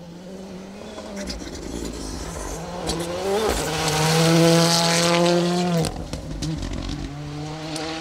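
Ford Fiesta Rally2 car's turbocharged three-cylinder engine at full throttle on a gravel rally stage, approaching and passing close by. The engine note rises in pitch and is loudest about four to five seconds in, then drops away sharply as the driver lifts off near six seconds in, with gravel hissing and clicking under the tyres as it passes.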